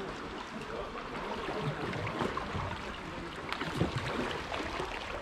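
Kayak paddles dipping and splashing, with water lapping against the hull as the kayaks move along.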